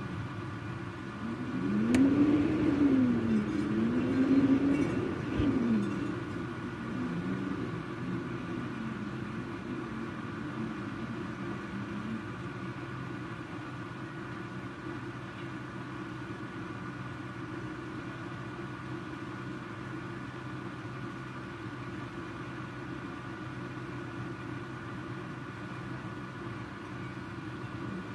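A motor vehicle's engine passing, its pitch rising and falling for a few seconds near the start, then fading into a steady rushing background noise with a faint steady hum.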